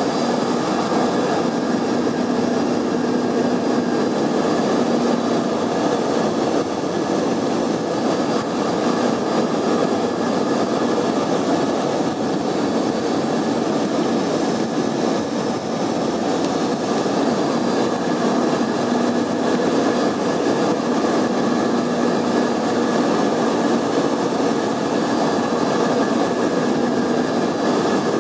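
Cabin noise of an Embraer 145 on approach: its rear-mounted Rolls-Royce AE3007 turbofans running steadily, with a low hum and a fainter high tone over the rush.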